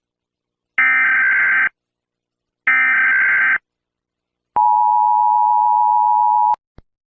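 Emergency Alert System end-of-message signal: the last two of three harsh, warbling digital SAME data bursts, about a second each and a second apart, marking the end of the alert. Then a steady tone near 1 kHz sounds for about two seconds and stops, followed by a click.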